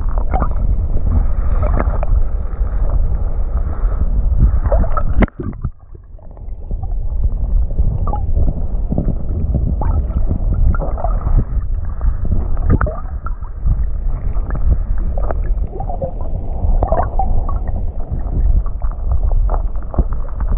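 Water sloshing and rushing around a camera held just under the surface of shallow seawater: a heavy, muffled low rumble with scattered crackles and knocks. It drops away suddenly for about a second, a little over five seconds in.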